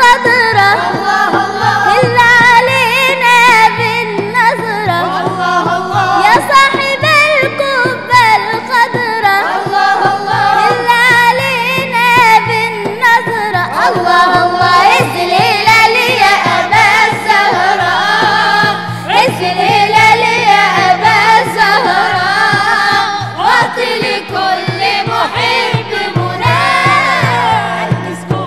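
A group of male and female voices singing an Arabic Islamic inshad, a praise song for the Prophet Muhammad's birthday (Mawlid), over a steady quick drum beat.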